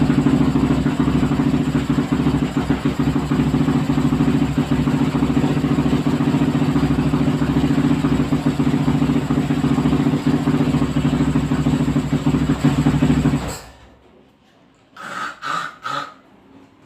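450cc motorcycle engine running at a steady idle, then shut off about thirteen and a half seconds in. It idles evenly after its throttle sensor has been adjusted to cure hard starting.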